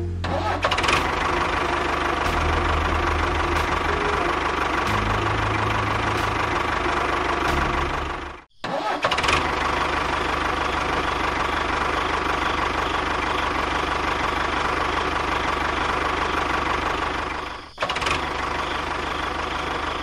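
Tractor engine running steadily, cutting out sharply for a moment about eight seconds in and dipping briefly again near the end.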